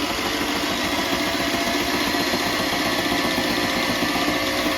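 Sailrite walking-foot sewing machine running steadily, stitching through pigskin leather.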